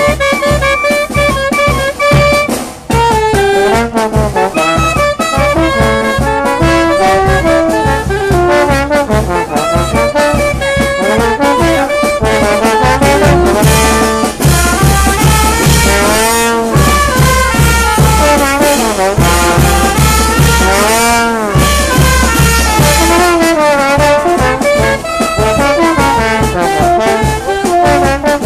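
Brass band playing a lively tune: trumpets and trombones carrying the melody over a steady bass drum beat, with cymbals crashing about halfway through.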